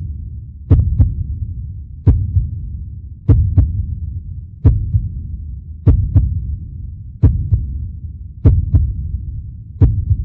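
Slow heartbeat sound effect: paired low thumps, lub-dub, repeating steadily about every second and a quarter over a low rumble.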